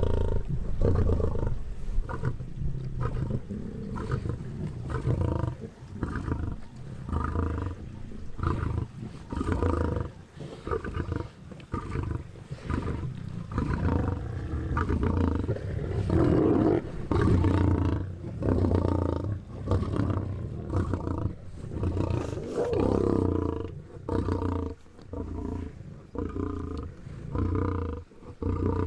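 African lions growling while they feed together on a zebra kill: a long run of low growls, about one a second, the sound of the pride squabbling over the carcass.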